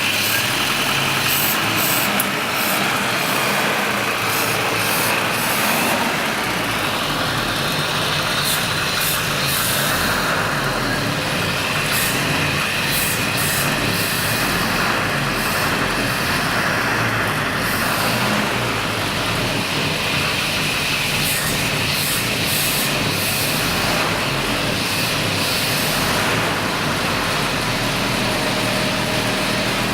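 GAZ Volga's four-cylinder engine idling steadily, fed by a freshly rebuilt and adjusted K151 carburetor. There is a hiss over the engine note throughout.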